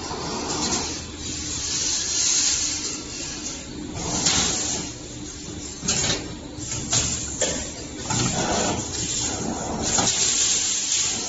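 2D CNC wire bending machine running: repeated bursts of compressed-air hiss from its pneumatic cylinders every second or two, with a few clicks over a steady low hum.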